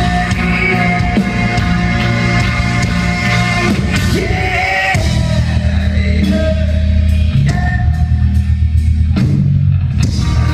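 A live rock band playing loudly: a singer over drums, bass and electric guitars, heard from the crowd.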